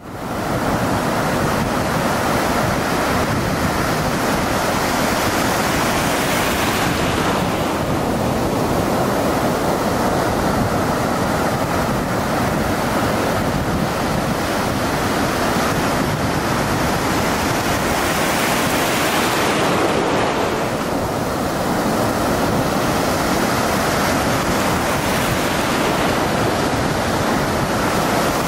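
A steady rushing noise that swells and ebbs slowly, growing brighter about eight seconds in and again near twenty seconds.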